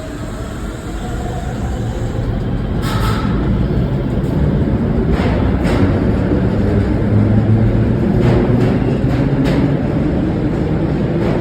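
Vintage R1/9 subway train running on the rails, its rumble building as it gathers speed, with sharp clacks of the wheels over rail joints every second or two.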